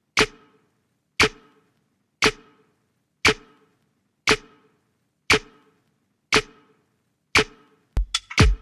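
A sharp percussive click, sampled and identical each time, repeated evenly about once a second, eight times, each with a brief ring. Near the end an electronic drum-machine beat comes in.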